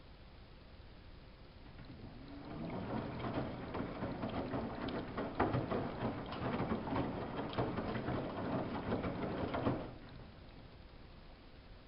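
Samsung WF71284 front-loading washing machine tumbling its load: water and wet laundry slosh and splash in the turning drum over a low motor hum. It builds up about two seconds in and stops abruptly just before the end, as the drum pauses between turns of the wash cycle.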